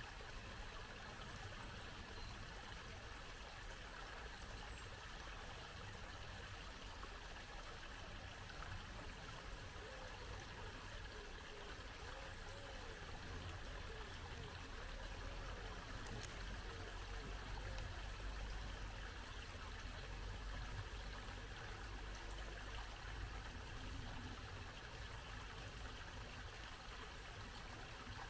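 Small brook babbling: a steady, even rush of flowing water. A low rumble swells a little around the middle.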